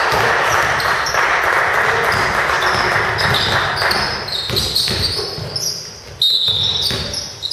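An indoor ball game in a sports hall. A steady din of crowd and court noise fills the first half. Then come short, high squeaks of shoes on the court floor and scattered knocks of a ball bouncing, and the din fades near the end.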